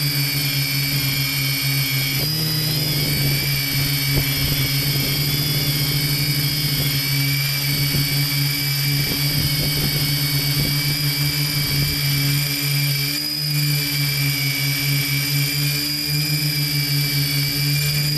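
Multirotor drone's motors and propellers in flight, a steady high-pitched whine over a lower hum, shifting slightly up in pitch about two seconds in.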